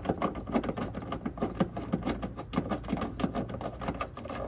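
Ratchet with a 10 mm socket clicking rapidly as a tail light mounting bolt is backed out, stopping near the end.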